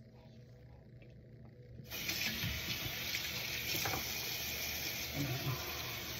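Water tap turned on about two seconds in, then running steadily into a sink.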